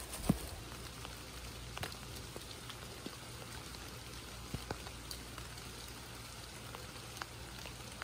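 Light rain falling, with scattered separate drops ticking over a faint steady background, the loudest a moment after the start.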